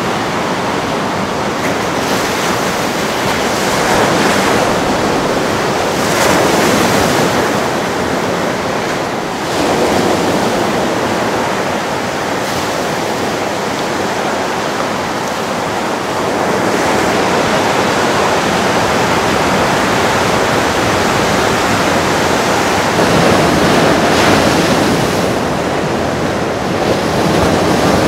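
Ocean surf: waves breaking and washing in, a continuous rushing wash that swells louder a few times as waves break.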